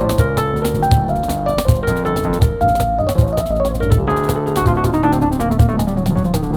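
Piano and percussion duo playing instrumental jazz-style music: the piano plays quick melodic lines over busy hand-drum and kit percussion, with a falling run of piano notes about two thirds of the way through.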